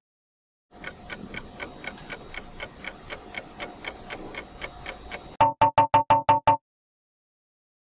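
Countdown timer sound effect: even clock-like ticking, about four ticks a second, for several seconds, then a quick run of seven loud beeps as the time runs out.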